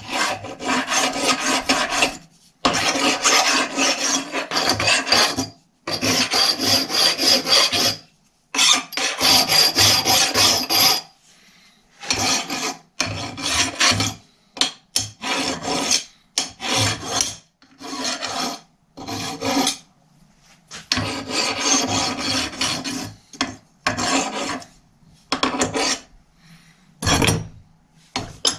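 Hand file rasping back and forth over a piece clamped in a steel bench vise, in bouts of two to three seconds with short pauses, turning into shorter, choppier strokes from about halfway through. A single knock near the end.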